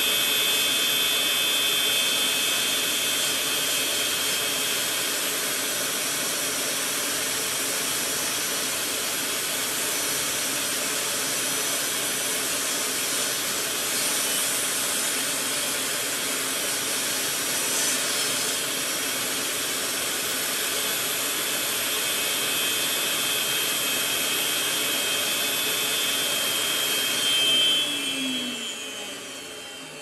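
Portable table saw running as a long wooden board is fed through the blade, a loud steady whine. Near the end the whine swells briefly, then the saw shuts off and the motor spins down, its pitch falling.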